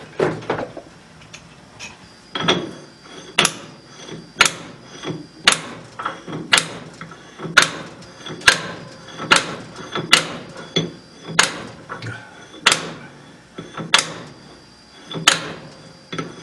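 Regular rapping on a stainless Stirling engine hot cap stuck tight on its mandrel in the lathe chuck, about one sharp rap a second, to work it loose.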